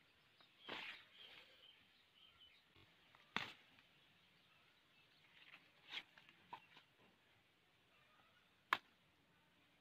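Leaves rustling and a few scattered sharp clicks and snaps, the sharpest near the end, as green brinjals are picked by hand from the plants.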